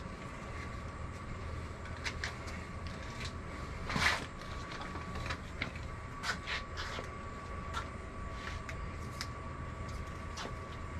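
Scattered clicks, knocks and rustles of someone rummaging through tools and containers, with one louder scrape about four seconds in, over a steady low hum and a faint steady high tone.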